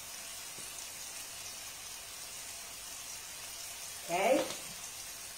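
Aubergine pulp sizzling quietly in a frying pan on the hob, a steady faint hiss. About four seconds in, a woman's voice sounds briefly.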